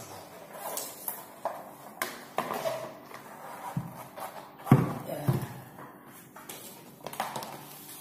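Knocks and bumps of a water heater tank being lifted off its wall bracket and set down, with two heavy thuds about halfway through.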